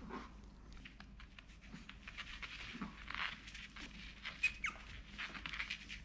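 Maltese puppies play-fighting on a foam play mat: irregular scuffling and rustling of paws and bodies, with one brief high squeak about four and a half seconds in.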